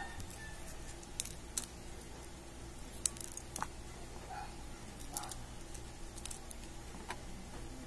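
Scattered light clicks and taps as slices of red bell pepper and the knife are handled on a plastic cutting board, over a faint steady low hum.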